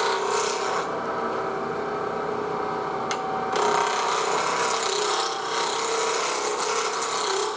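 Spindle roughing gouge cutting a spinning wooden blank on a Jet wood lathe set at about 3,000 rpm, roughing it toward round: a rasping cut over the steady hum of the lathe. The rasp drops away about a second in, a click comes just after three seconds, and the cut picks up again about half a second later.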